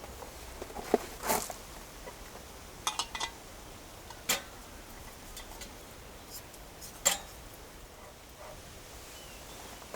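Occasional light clinks and knocks of small objects being handled, about half a dozen sharp taps over a quiet background.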